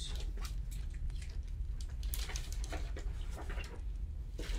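Soft rustles of paper as a large book is opened and its pages are handled, a few short rustles around the middle, over a steady low hum.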